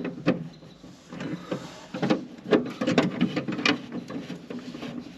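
A Phillips screwdriver working screws out of a tractor's dash panel: irregular clicks and knocks of the tool and the metal and plastic parts, several of them a second or so apart.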